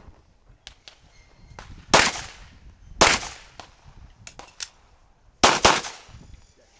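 Handgun shots fired outdoors: one about two seconds in, another a second later, then a fast pair near the end, with a few fainter pops in between.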